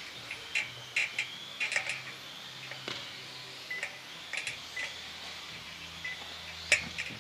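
Electric 1:10 RC off-road cars driving on a carpet track: a run of short clicks and clacks as they strike ramps and boards, under a faint high electric-motor whine that rises and falls.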